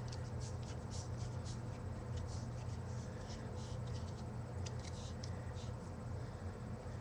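Faint, irregular plastic clicks and scraping as pen parts are twisted onto a cut-down foam Nerf dart by hand, over a steady low hum.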